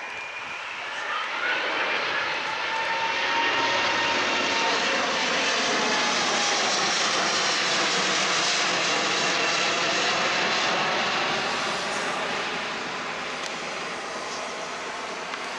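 Boeing 787-9's twin Rolls-Royce Trent 1000 turbofans at go-around thrust as the airliner passes low overhead and climbs away during an aborted landing. The jet noise swells about a second and a half in, with whining fan tones sliding down in pitch, and fades near the end.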